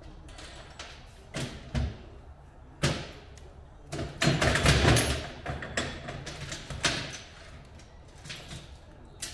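A series of knocks and a clatter of hand tools being handled in a workshop, the busiest and loudest stretch about four to five seconds in.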